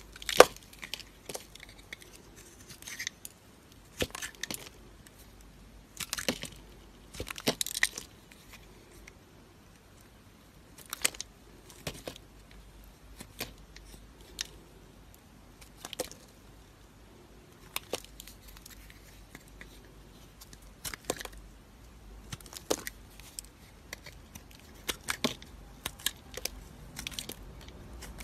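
Flat razor blade cutting into a bar of soap: a string of short, crisp crunching cuts and snaps a second or two apart, some in quick clusters of several.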